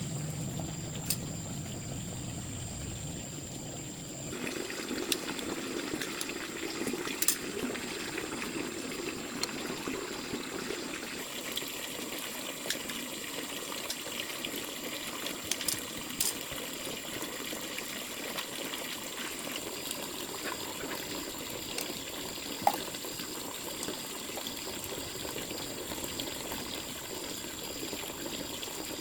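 Water running or trickling, with a steady high-pitched whine and a few sharp clicks; the sound shifts about four seconds in.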